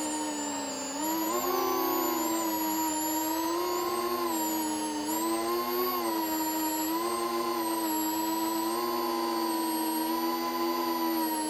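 FPV drone's brushless motors and propellers whining steadily, several pitches wavering up and down together with the throttle, with a brief drop in pitch and level about a second in before it climbs back.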